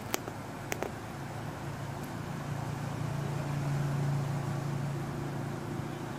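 A low drone that swells to its loudest about four seconds in and then eases off, after a sharp click and a quick double click in the first second.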